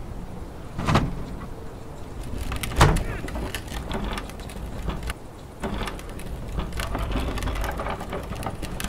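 Plastic wheelie bin being handled, its lid knocking twice, the louder knock about three seconds in, with lighter clicks and bumps after, over a steady low rumble.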